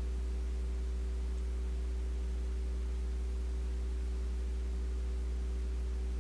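Steady low electrical hum with a few fixed higher tones over faint hiss, unchanging throughout.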